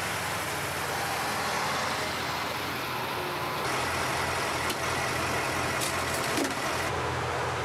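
KamAZ army truck's diesel engine running, first as the truck drives, then idling with the truck stopped.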